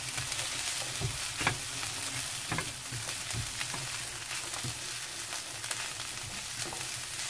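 Shredded dried pollack and shishito peppers sizzling as they stir-fry in a frying pan, a steady hiss. A spatula pushes them around, with a few short scrapes and taps against the pan.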